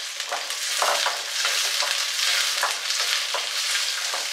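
Halved shallots sizzling as they fry in hot sesame oil in a steel pan, while they are stirred about. The sizzle grows louder about a second in, with short sharp scrapes and knocks against the pan through it.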